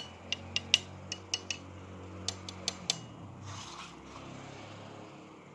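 Quick, light metallic clicks and taps from fingers on the metal sector-antenna plate of a TP-Link CPE220, about a dozen in the first three seconds, then a short rustle as the unit is turned over.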